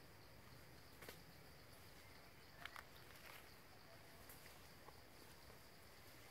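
Near silence: a faint, steady high insect drone from the forest, with a few faint clicks about a second and two and a half seconds in.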